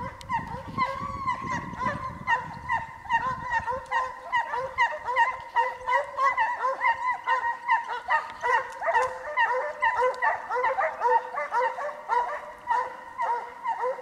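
Hunting hounds giving tongue in the chase: a quick run of high, ringing yelps and bays, several a second, some overlapping as more than one dog cries at once.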